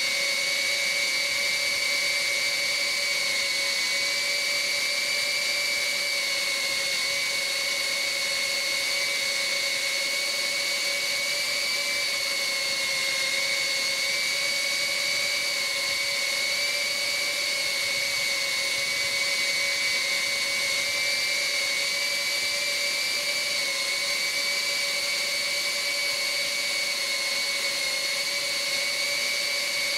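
Happymodel Mobula tiny-whoop FPV drone in flight, its small motors and propellers giving a steady high-pitched whine that holds nearly one pitch with only slight wobbles.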